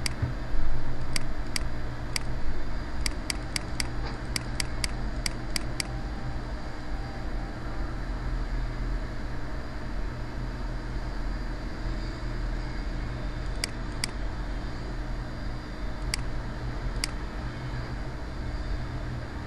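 Computer mouse clicks over a steady low hum and hiss: a few single clicks at first, a quick run of about a dozen clicks a few seconds in, then scattered single clicks later.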